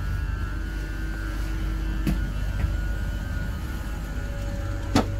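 Steady low rumble and hum inside a Trenord regional train carriage, with two sharp clicks, about two seconds in and near the end.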